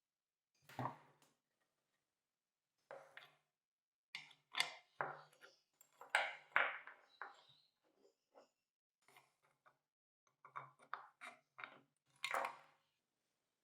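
Irregular metallic clinks and clanks as hand tools and metal parts are handled, about a dozen separate knocks with clusters near the middle and toward the end.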